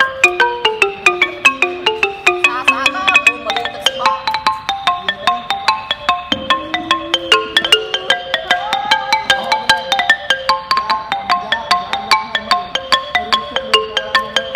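A boat-shaped wooden xylophone played with two padded mallets: a fast, even stream of struck, ringing notes at about five or six a second, often two notes sounded together.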